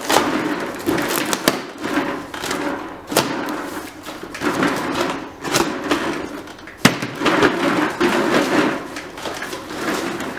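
Box cutter slicing the packing tape on a cardboard box, then the cardboard flaps scraping and rustling as they are pulled open, with several sharp knocks, the loudest about seven seconds in.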